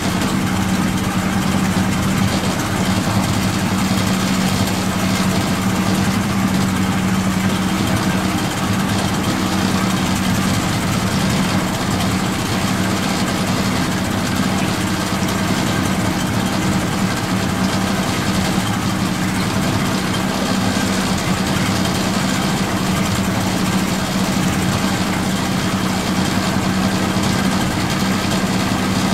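A boat's engine running at a steady, unchanging speed.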